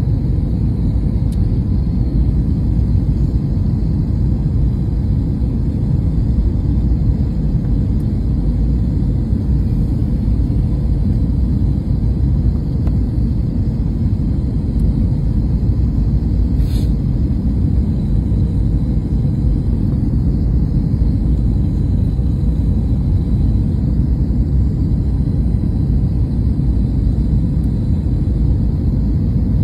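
Steady low rumble of an airliner heard from inside its cabin, even throughout, with one brief high click a little past halfway.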